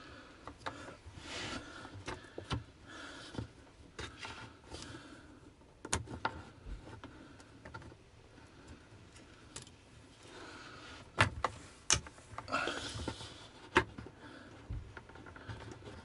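Plastic push-fit water-line connectors being handled by hand: scattered clicks and knocks with short bursts of rustling, and a few sharper knocks in the second half.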